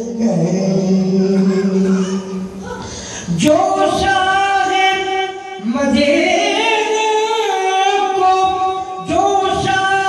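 A man singing an Urdu naat into a microphone without instruments, drawing out long held notes and sliding up into each new phrase, with brief pauses for breath.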